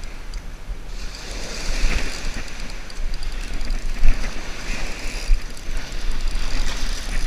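Ocean surf washing up on a sandy beach in swelling and fading waves, with wind buffeting the microphone.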